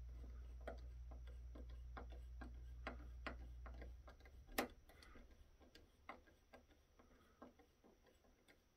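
Faint, scattered light clicks and taps, irregular, about one or two a second, with one sharper tap just after the middle. A low steady hum underneath cuts off about four seconds in.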